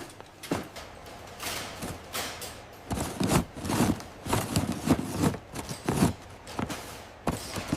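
A run of irregular knocks and thuds with rustling, busiest and loudest in the middle of the stretch.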